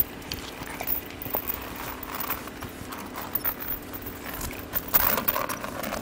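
Young Jindo dogs eating boiled pork from a hand: wet smacking and chewing with a run of small clicks, busiest about five seconds in.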